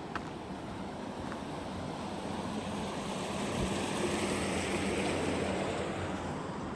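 Steady rushing hiss, like tyres on a wet road, that swells about halfway through and eases near the end, as a vehicle passes.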